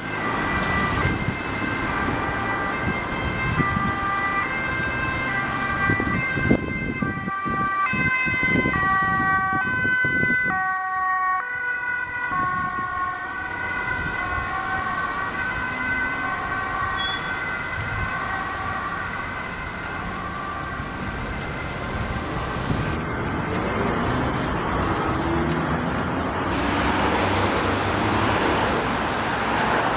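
Dutch ambulance two-tone siren alternating between a high and a low note, heard while the ambulance drives on an urgent call. It is strong at first and grows fainter past the middle, with road traffic running underneath.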